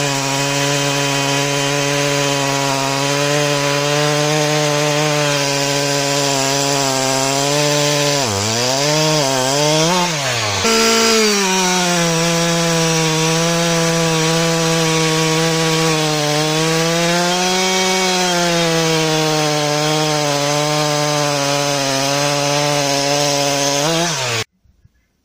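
Husqvarna 372XP two-stroke chainsaw at full throttle under load, its hand-filed Oregon EXL chain cutting through a thick oak log. The engine note holds steady in the cut, dips and recovers twice a little before the middle, then changes abruptly as a fresh cut begins. It stops suddenly near the end.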